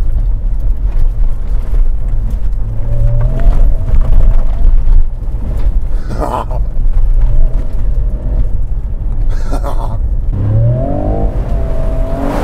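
A pickup truck's engine rumbling loudly, heard from inside the cab while driving hard off-road. Brief shouts from the occupants come a few times, with a longer cry near the end.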